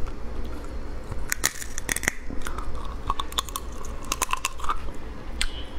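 Close-up mouth sounds of biting and chewing raw lobster meat, with many short, irregular wet clicks, over a steady low hum.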